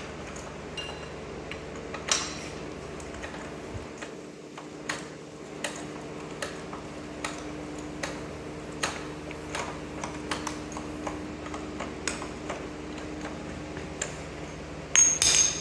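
Hand ratchet clicking in short runs as the bolt holding an excavator's linkage pin is turned out, while a wrench holds the nut. A louder metal clank comes near the end, over a steady hum.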